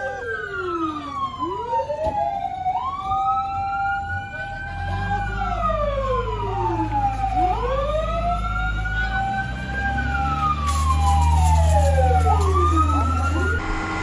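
Two fire truck sirens wailing out of step, each rising and falling in slow sweeps about five seconds long. About five seconds in, a heavy engine drone comes in underneath, loudest near the end.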